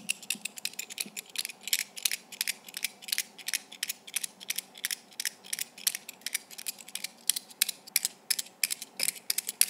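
SHUYUE metal puzzle lock banged repeatedly against an open palm, its metal clicking and rattling about five or six times a second.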